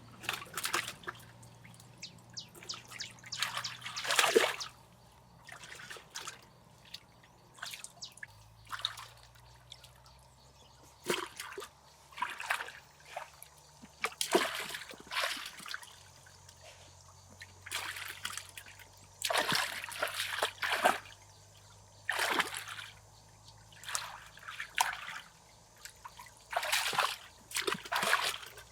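Water splashing and trickling in short, irregular bursts with quieter pauses between them.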